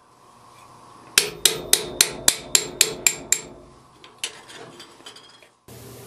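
Hammer driving a narrow chisel, 1/16 inch wide, through a thin metal back plate resting across open vise jaws, shearing out a rivet slot. About nine sharp metallic strikes come roughly four a second, followed by a few lighter taps.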